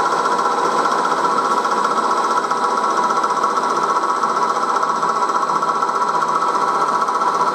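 1938 Bridgeport M-head milling machine running, its end mill cutting metal steadily as it traces around a cylinder block profile under flood coolant. This is a roughing pass about 100 thou (2.5 mm) deep that leaves about 3 thou of metal for the finishing cut.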